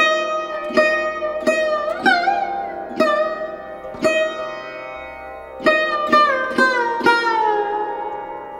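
Background music: a plucked string instrument playing a slow melody of single notes, each struck sharply and left to ring, several sliding up or down in pitch. A last long note bends downward and fades near the end.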